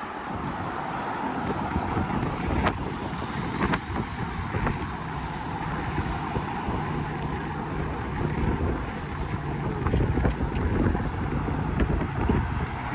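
Wind buffeting the microphone over a steady rush of car traffic on the adjacent road bridge.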